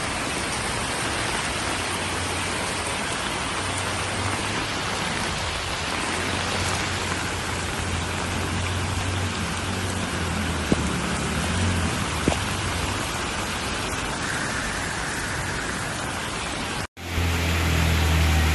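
Heavy rain pouring onto a flooded street, a steady hiss with a low hum underneath and two brief clicks about two-thirds of the way through. Near the end the sound cuts out briefly, and a motorcycle engine comes in, running as the bike rides through floodwater.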